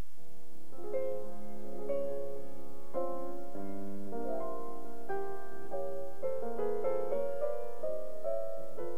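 Background piano music: a slow melody, a new note or chord about every half second.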